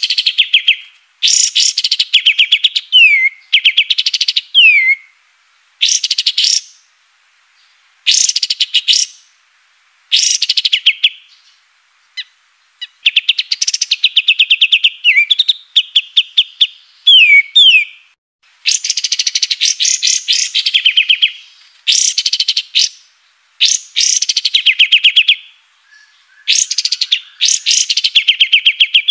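A kapas tembak songbird singing loudly in bursts of rapid, high repeated notes. Each burst lasts a second or two and often ends in a quick downward slur, with short pauses between phrases.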